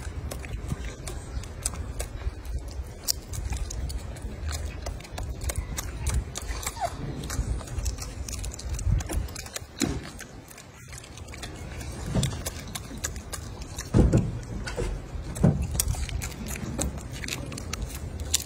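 Many small sharp clicks and crackles of eggshell and chewing as a golden snub-nosed monkey peels and eats a boiled egg, over a low rumble, with two louder knocks in the last third.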